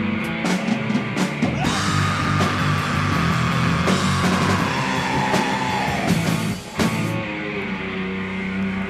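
Live punk rock band playing loud: distorted electric guitars, bass and drums with crashing cymbals, a long held high note slowly sinking in pitch over a few seconds, and a brief break in the sound about two-thirds of the way through.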